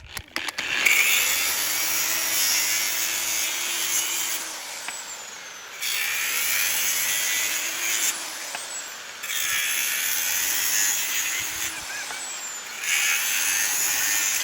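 Angle grinder cutting through the copper winding end of a washing machine motor's stator. It starts about a second in, then runs in four louder cutting stretches with short easings between as the blade bites and is let off.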